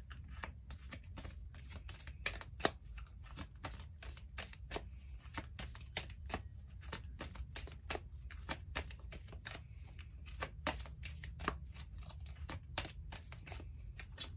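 Tarot cards being shuffled by hand: a quick, irregular run of soft card clicks and snaps, several a second, over a low steady hum.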